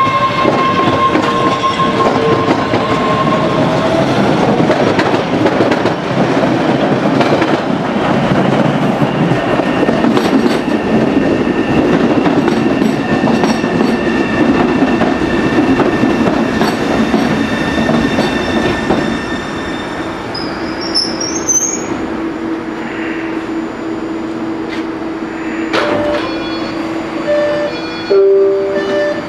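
A new MBTA 1900 series Red Line subway train pulling into the station. It starts with a steady motor whine, then a long stretch of wheel and rail noise as the cars run past, and a brief high squeal as it brakes to a stop about twenty seconds in. It then stands with a steady hum, with a few short tones near the end while the doors are open.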